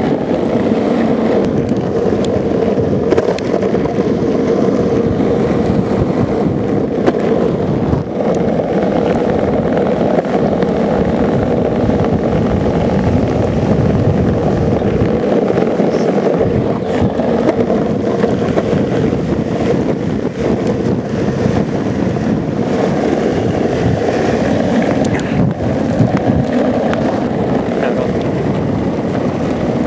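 Longboard wheels rolling fast on asphalt in a continuous steady roar, mixed with headwind buffeting the microphone.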